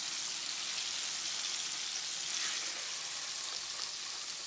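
Hot oil sizzling steadily in a countertop deep fryer as cornmeal-and-flour-coated hog testicles (hog fries) finish frying.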